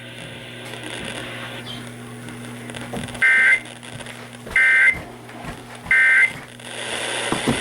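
Emergency Alert System SAME header: three short bursts of buzzing two-tone digital data, spaced about a second apart, the coded header that begins an emergency alert, over a steady low hum.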